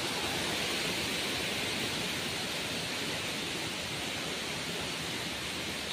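Steady rush of a rain-swollen waterfall and its muddy torrent, a continuous hiss of white water with no breaks.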